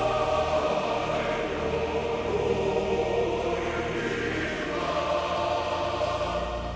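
Background music of a choir singing slow, sustained chords that change every second or two.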